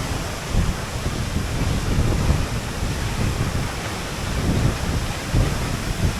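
Steady roar of a large waterfall heard up close, with gusts of spray-laden wind buffeting the microphone.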